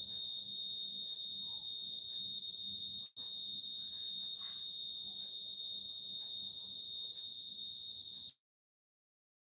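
A cricket trilling: a steady, high-pitched song that breaks off for a moment about three seconds in and cuts out entirely about a second before the end.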